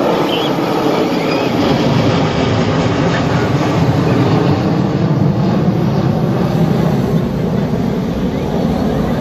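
B-2 Spirit stealth bomber flying over, its four turbofan jet engines making a loud, deep, steady rumble. The rumble swells through the middle and eases slightly near the end.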